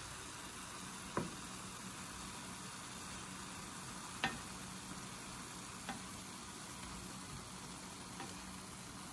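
Ground beef, onions and chopped mushrooms sizzling steadily in a pan cooked without oil. The food is being stirred, with a few sharp knocks of the utensil against the pan, the loudest about four seconds in.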